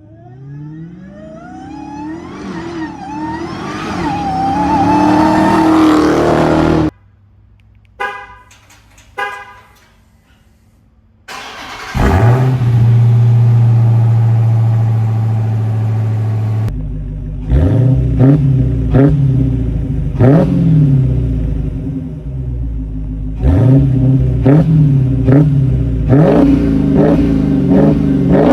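Supercharged 6.2-litre HEMI V8 of a stock-exhaust Dodge Hellcat in a run of quick cuts: first a long acceleration with the engine note and supercharger whine rising, then, after a quiet gap with two short horn-like beeps, the engine firing up and holding a steady loud idle, followed by a series of short throttle blips.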